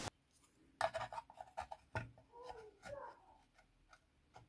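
Faint light taps and rubbing as a thin drilled aluminium plate is handled and set on top of a small wooden speaker box, with a cluster of small clicks and scrapes about one to three seconds in.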